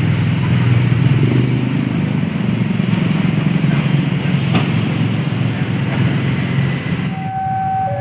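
A motor vehicle engine running close by with a steady low drone, which cuts out about seven seconds in. Just after, steady electronic warning tones begin, alternating between two notes.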